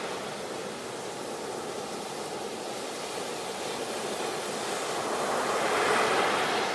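Ocean surf washing up a beach: a softer stretch of wash, then a wave breaking and surging louder near the end.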